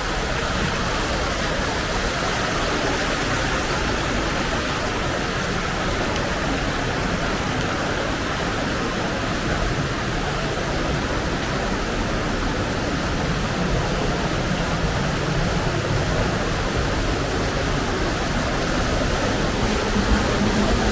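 Waterfall inside a rock cave, water pouring down in a loud, steady rush with no change in level.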